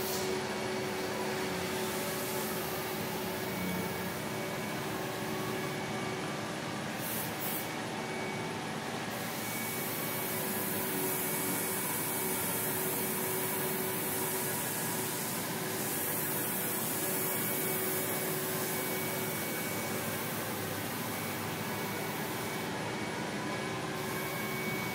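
Airbrush hissing compressed air over a steady motor hum. The hiss is strongest for several seconds in the middle.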